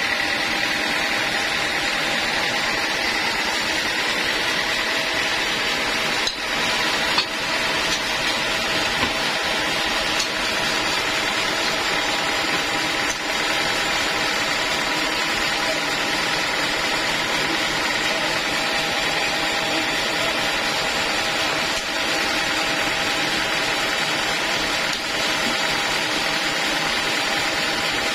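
Band sawmill running steadily with a constant machine whine. A few short knocks come and go over it.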